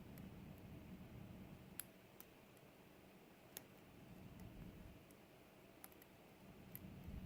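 Faint, scattered clicks of a lock pick working the pin stack of a GEGE euro cylinder under tension: about five small ticks spread irregularly over a low handling rumble while pins are set one by one.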